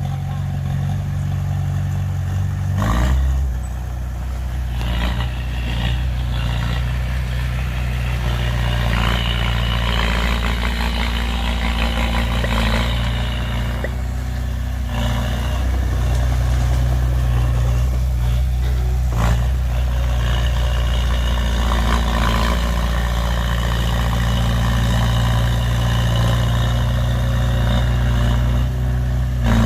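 Heavy diesel engine running steadily at a low pitch, its note shifting about three seconds in, with a few clanks now and then.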